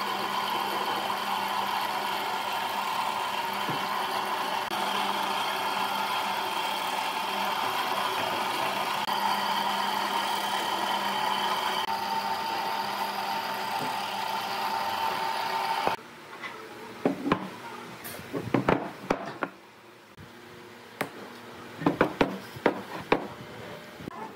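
Wood lathe running steadily, its motor and spinning work giving a dense hum with several held tones. About two-thirds of the way through it cuts off suddenly, leaving a quieter background with scattered sharp knocks and clicks.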